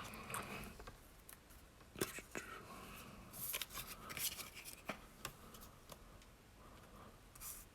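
Faint handling of trading cards and their packaging: scattered light clicks and short papery and plastic rustles.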